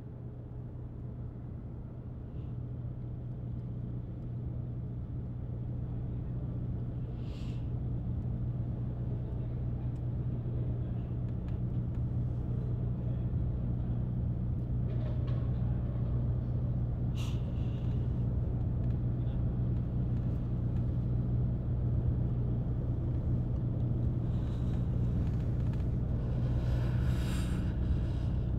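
Car cabin noise heard from inside a moving car: a steady low engine and road drone that slowly grows louder, with a few faint clicks.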